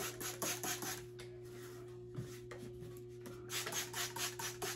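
Trigger spray bottle spritzing water onto a synthetic wig in quick squirts, about five a second, stopping for a couple of seconds in the middle and then starting again.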